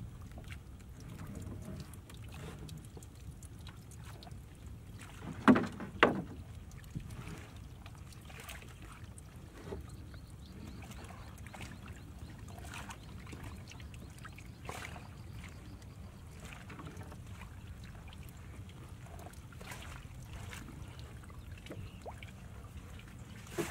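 Water splashing and dripping around a small boat as a wet fishing net is hauled up over its side, with scattered small knocks and two loud sharp sounds half a second apart about a quarter of the way in.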